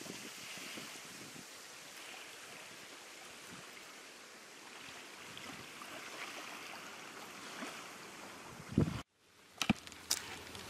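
Small waves lapping steadily at a sandy lake shore, with light wind. Near the end there is a brief thump, the sound cuts out for a moment, then a few sharp clicks.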